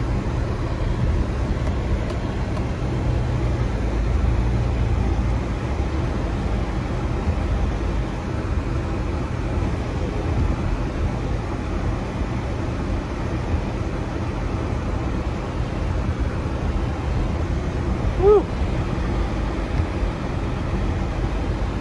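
Steady low rumble of a Subaru's engine and tyres, heard from inside the cabin as it drives slowly over a snow-covered dirt road. A brief higher-pitched sound rises above it near the end.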